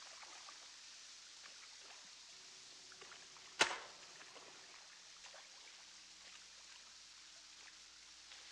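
Faint water trickling and dripping in a sewer tunnel, with scattered small ticks. About three and a half seconds in comes one sharp snap that rings out briefly in the tunnel.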